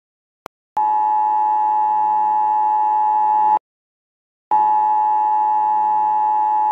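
Emergency Alert System two-tone attention signal, two steady pitches sounding together just under 1 kHz. It sounds as two long blasts of about three seconds each, separated by a gap of about a second, with a faint click just before the first.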